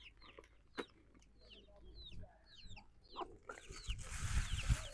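Chickens clucking, with many short, high, falling peeps repeating throughout. Near the end a rustle with low bumps comes up over them.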